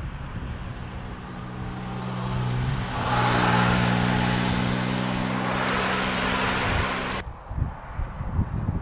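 A motor vehicle's engine running steadily nearby with tyre and road noise. It grows louder over the first three seconds, then cuts off abruptly about seven seconds in. Wind rumbles on the microphone underneath.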